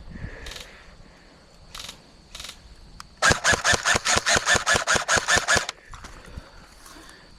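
Airsoft gun firing a full-auto burst: a rapid, even string of sharp shots, about six or seven a second, lasting about two and a half seconds. A few fainter single pops come before it.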